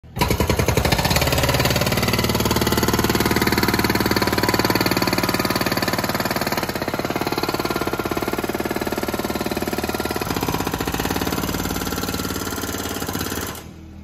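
Hydraulic breaker on a machine's boom hammering into a concrete floor with rapid, steady blows, stopping suddenly near the end.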